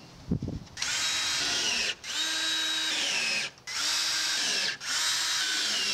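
Cordless drill driving screws into a fiber cement siding plank, in four runs of about a second each, the motor whine dropping in pitch at the end of each run.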